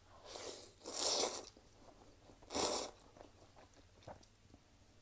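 Close-up slurping of kimchi ramen noodles: a softer slurp, then two loud slurps about one second and two and a half seconds in. Faint chewing can be heard between them.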